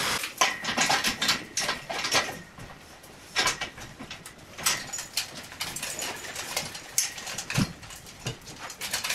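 Angle-grinder sanding cuts off just after the start, followed by irregular metallic clinks and rattles of a manual chain hoist as its hand chain is pulled to lift a load.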